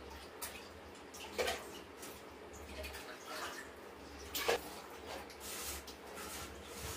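Hand-eating of wet dal and rice from steel plates: soft squelching of food and scattered small clicks, with two louder sharp knocks about a second and a half in and about four and a half seconds in.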